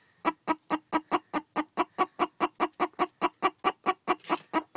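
A barred hen sitting in a nesting box clucking rapidly and evenly, about six short clucks a second, grumbling at being disturbed on her nest.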